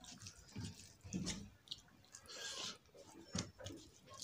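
Eating rice and potato curry by hand: fingers squishing and mixing rice on a steel plate, with chewing, in irregular soft clicks and squelches.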